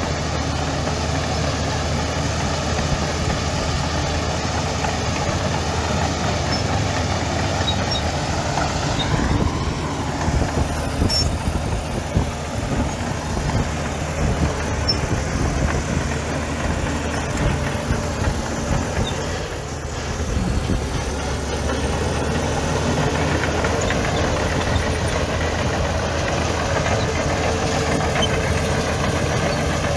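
Heavy diesel engine of earthmoving machinery running steadily, its note rising and falling as the load changes, with a brief dip about twenty seconds in.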